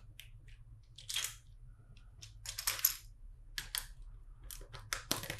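Plastic LEGO bricks clicking and rattling as they are handled and picked from loose parts: a string of short, irregular clicks and clatters.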